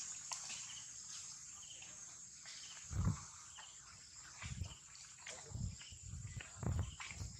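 Steady high-pitched insect buzzing with faint short chirps, broken from about three seconds in by four or five dull low thumps, the first the loudest.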